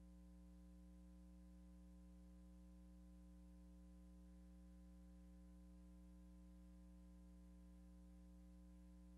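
Near silence: a faint, steady electrical hum with no change.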